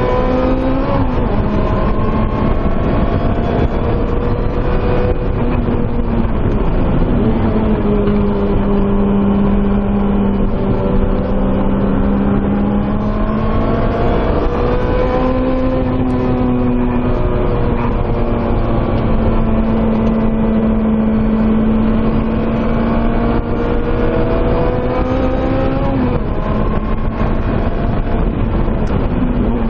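2007 Lotus Exige S's supercharged 1.8-litre four-cylinder engine running hard at high revs on a fast lap. Its pitch dips and climbs again at several gear changes.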